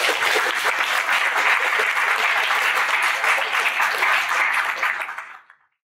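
Audience applauding, a dense steady clapping that fades out about five seconds in.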